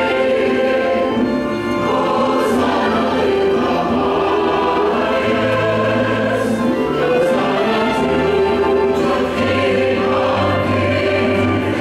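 Church choir singing an anthem in parts, accompanied by violin and piano, with low held notes under the voices.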